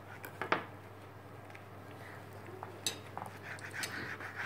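Kitchen knife slicing through a nori-wrapped sushi roll, its blade knocking lightly on a plastic cutting board: a few scattered short clicks, the sharpest about half a second in.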